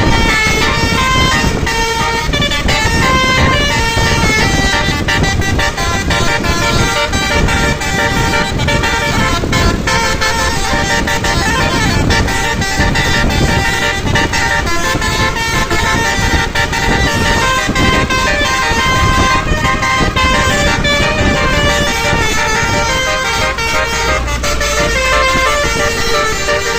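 Bus 'telolet' musical air horn of the basuri type playing a long tune of quick stepped notes, over the rumble of the bus engine.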